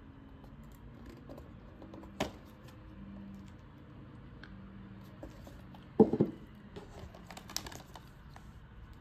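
Hands handling a hard-shell Blu-ray box set and its plastic disc cases: light scraping and tapping, a sharp click about two seconds in, and a louder clatter of knocks about six seconds in as the cases are handled.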